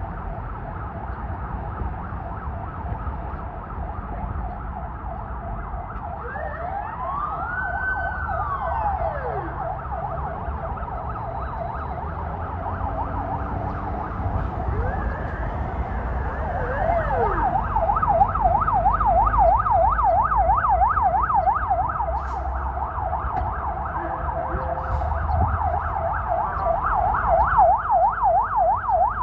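Ambulance siren sounding a fast yelp that rises and falls several times a second, with one slow wail sweep up and down about a quarter of the way in. The yelp grows louder and clearer past the halfway mark as the ambulance draws near, over a low rumble of city traffic.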